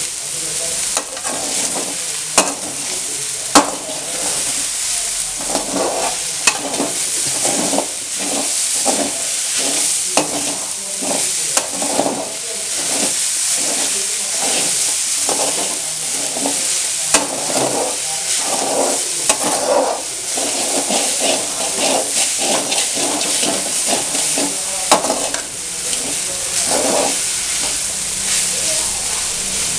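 Vegetables and freshly added spinach leaves sizzling in a hot pan, stirred and scraped over and over with a spatula, with a few sharp knocks of the spatula against the pan.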